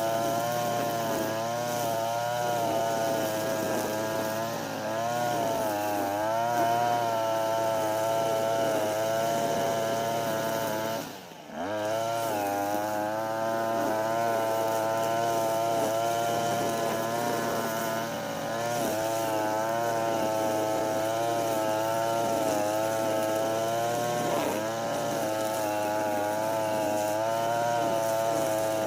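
Europa Hilt TB43 two-stroke brush cutter running at high revs, its pitch wavering up and down as the blade takes and sheds load in the grass. About eleven seconds in the engine briefly drops off and then picks up again.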